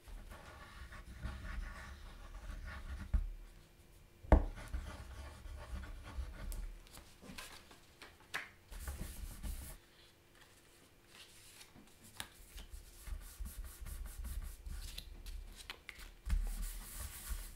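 Thin card being handled, glued with a glue stick and pressed together by hand: soft rubbing and rustling of card, with scattered light taps and a sharper click about four seconds in.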